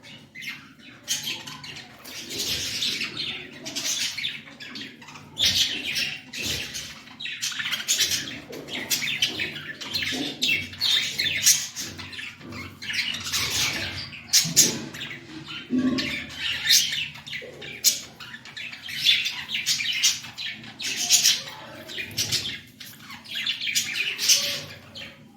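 Pet budgerigars chattering and squawking, rapid high calls coming in uneven bursts.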